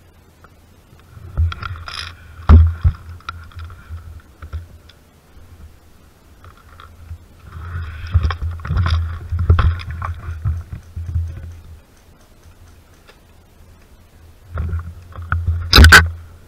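Rustling, rubbing and bumping against a body-worn camera's microphone as the player shifts position, in three irregular bursts with a low rumble, ending in a sharp knock near the end.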